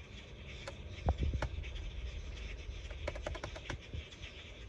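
Light clicks of a laptop's pointer button as the fault-code list is scrolled down: a few single clicks, then a quick run of about eight clicks about three seconds in, over a faint low rumble.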